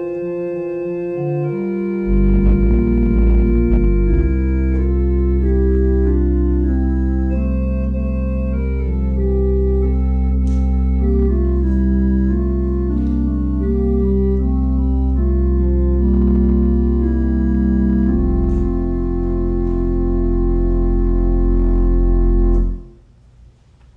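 Organ playing slow, sustained chords over a deep held pedal bass that comes in about two seconds in, ending on a long final chord that is released near the end.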